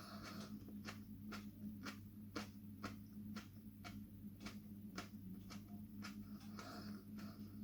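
Chewing a large, oily superhot chili pod (Jay's Red Ghost Scorpion) with the mouth close to the microphone: soft clicks of the jaw and wet mouth sounds at a steady rate of about two a second. A steady low hum runs underneath.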